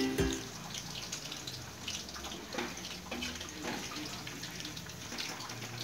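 Faint sizzle and crackle of hot frying oil in a kadai, with scattered small ticks, as fried chicken and capsicum pieces are lifted out with a slotted spoon.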